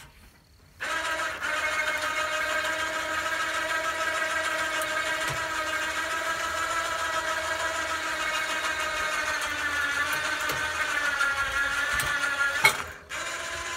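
Cordless drill motor running steadily under load, driving the lifting pole's winch to hoist a hog carcass. It starts about a second in, wavers slightly in pitch near the end, then stops with a click before a short, weaker run.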